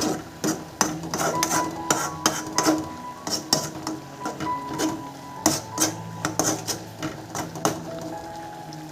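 Irregular sharp knocks of a kitchen utensil striking a hard surface, about two to three a second, stopping shortly before the end, over background music.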